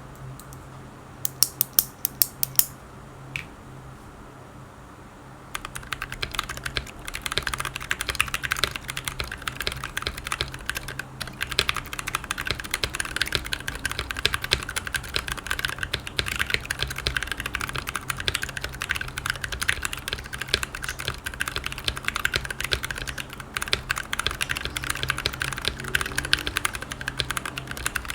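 Custom acrylic-stack mechanical keyboard with lubed and filmed SP-Star Purple switches and PBT Cherry-profile keycaps: a short run of separate sharp key clicks, then from about five seconds in, fast continuous typing. A low steady hum sits underneath.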